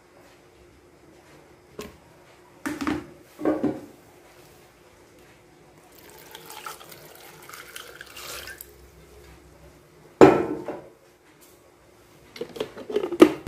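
Kitchen clatter of dishes and utensils being handled: a few knocks early on, a short stretch of running water in the middle, a loud knock about ten seconds in, and a run of small clinks and knocks near the end.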